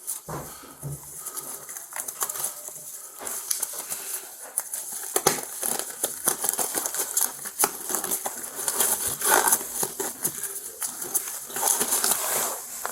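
Rustling and crinkling handling noise with many scattered clicks, close to a body-worn camera's microphone: clothing, gear or packaging being moved about, getting denser toward the end.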